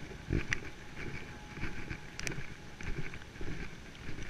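Footsteps on a wet concrete sidewalk, about two steps a second, heard as dull thumps through a chest-mounted GoPro, over steady wind noise on the microphone.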